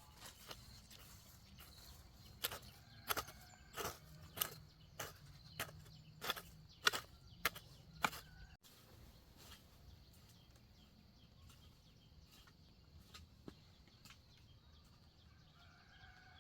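A steady series of sharp knocks, about one every half second, that stops abruptly about eight and a half seconds in, leaving only a few faint scattered ticks.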